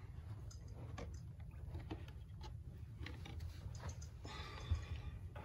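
Faint scattered clicks and taps over a low steady hum, with a short rustle and a thump about four and a half seconds in.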